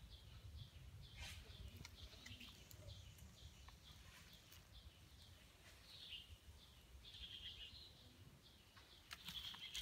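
Near silence with faint, repeated short bird chirps over a low rumble.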